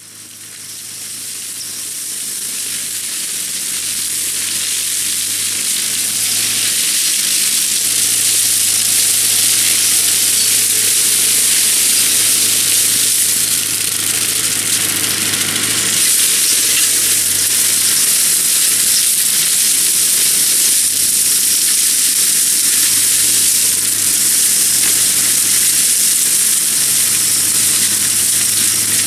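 Tractor-driven Graecus flail mulcher shredding a stand of tall reeds: a steady, dense hiss of chopping over the low hum of the tractor engine. It fades up over the first few seconds.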